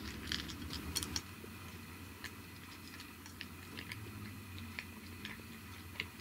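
Brown tabby cat crunching dry kibble from a bowl: sharp crunches, a quick cluster in the first second or so, then sparser ones.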